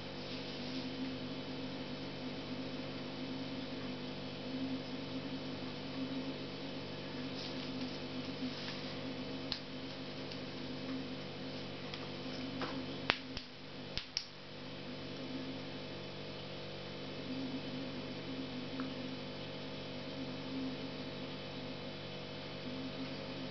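Steady low electrical hum, with two sharp clicks about a second apart near the middle as small components are handled on the table.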